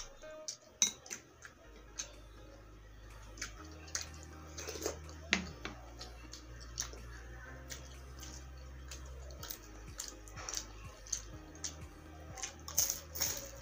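Close-miked chewing with wet mouth clicks and smacks, scattered irregularly. A cluster of louder clicks comes near the end as she bites into a fried dynamite spring roll, a chili wrapped in lumpia wrapper.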